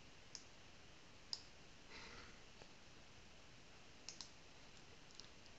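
A handful of faint single computer mouse clicks, spread apart, over near-silent room tone.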